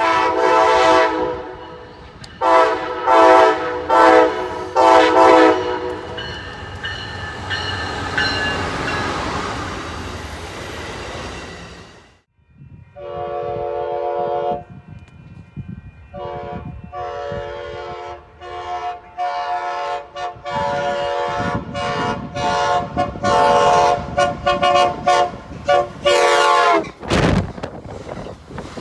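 Amtrak Pacific Surfiner locomotive horns sounding chords of several notes at once, played as a horn show for railfans. Four blasts open, followed by the rumble of the passing train. After a sudden break, a second horn gives one longer blast and then a long run of many rapid short toots, ending abruptly.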